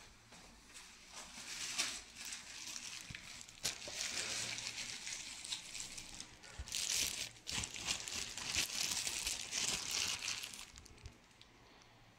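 Thin clear plastic bag crinkling as it is handled around a plastic bottle, coming in uneven spells that grow louder and then stop about a second before the end.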